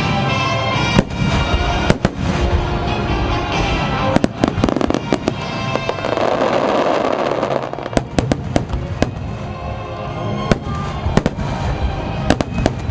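Fireworks going off in many sharp, irregular bangs over sustained orchestral-style theme music, with a dense patch of crackle about halfway through.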